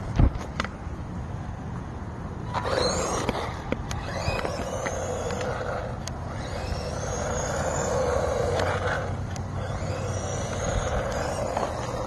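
PHYWESS 1:16 scale 4x4 electric RC truck driving on concrete: after a few light clicks, its motor and gears set up a whine, together with tyre noise, about two and a half seconds in. The whine rises and falls with the throttle and is loudest past the middle.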